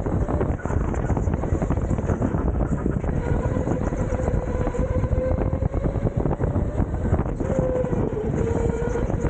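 Rental go-kart running at speed, heard onboard: a steady motor whine that wavers slightly in pitch, over a heavy rumble of wind buffeting the microphone and tyre noise.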